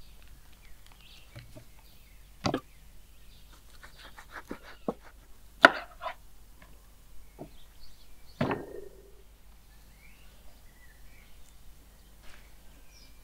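Chopping: three louder, separate chops about three seconds apart, with lighter knocks and clicks between them. Faint bird chirps come near the end.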